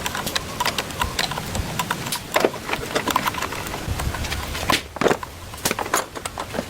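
Irregular clicks, taps and knocks of hand tools and parts being handled during work on a motorbike, with a few louder knocks about two and a half and five seconds in.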